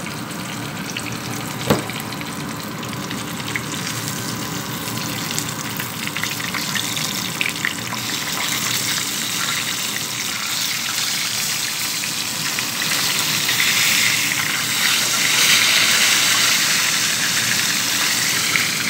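Whole tilapia frying in hot oil in a pan: a steady sizzle that grows louder about halfway through. There is a single sharp knock about two seconds in.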